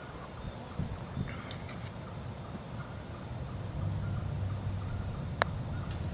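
A single sharp click about five seconds in: a putter striking a golf ball on the green. Behind it, steady high-pitched insect chirring, and a low rumble that comes up about four seconds in.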